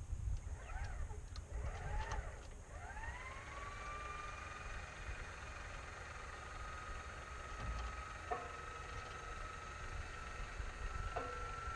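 A machine spinning up, its whine gliding upward about three seconds in and then holding at a steady high pitch, creeping slightly higher, over a low rumble. A couple of faint clicks come later, and a few short rising and falling chirps come before the spin-up.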